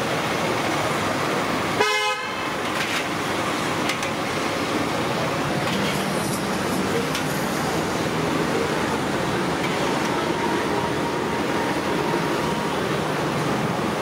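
Oil sizzling steadily as bondas deep-fry in a large iron kadai, amid street traffic noise; a short vehicle horn toot sounds about two seconds in.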